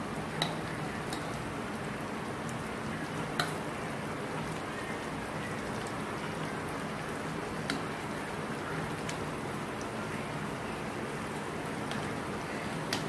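Chicken chow chow gravy, thickened with cornflour, simmering in a wok: a steady bubbling hiss with now and then a sharp pop of a bursting bubble.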